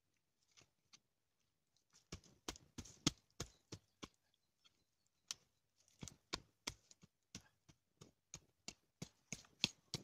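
Axe chopping into forest soil and roots to dig a pit: a quick series of sharp strikes, about three a second, starting about two seconds in, with a short pause around the middle.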